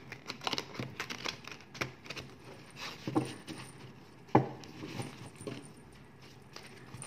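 Tarot cards being shuffled and laid down by hand: a run of irregular soft clicks and flicks, with a sharper tap about four seconds in.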